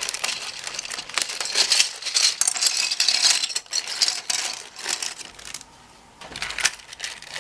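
Loose plastic keycaps clicking and clattering against each other as they are handled and sorted, with a short lull about five and a half seconds in.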